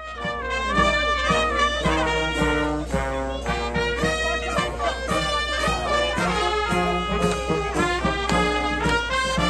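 Brass band of trumpets and trombones playing a lively tune, over a steady low rumble.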